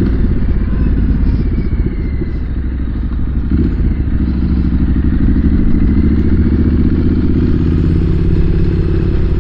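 Triumph SS900 motorcycle engine running under way, picked up by a helmet-mounted microphone along with wind noise. The engine note eases slightly a few seconds in, then climbs steadily through the second half as the bike speeds up.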